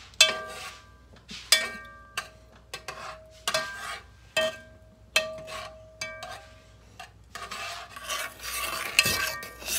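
A spoon stirring vegetables sautéing in a metal pot, knocking against the pot about once a second with short ringing clinks. From about seven seconds in, the stirring turns to a denser, continuous scraping.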